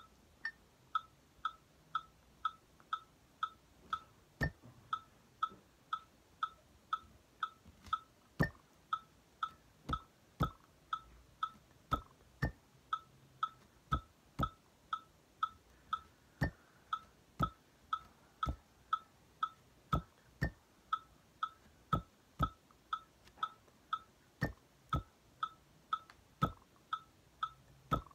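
A metronome clicking steadily at about two beats a second, with a higher accent click every few seconds. Over it, a hand taps a rhythm on a wooden tabletop, the knocks landing on and between the beats as a rhythm-reading exercise.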